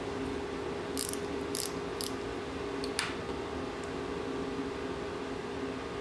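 Small hand screwdriver turning the screws of a folding knife: a few short, light metal clicks and scrapes, with one sharper click about three seconds in, over a steady low hum.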